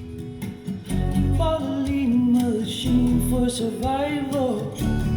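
Music with a strummed acoustic guitar and a singing voice, played through car-audio speakers on a demo wall: a Micro Precision 5-series mid-bass and 3-inch wideband driver set up without a tweeter. The voice comes in about a second in and drops out near the end.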